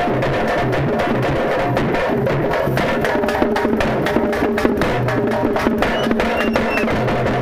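A live band's drums playing a dense, loud rhythm, with a melody line carried over the drumming.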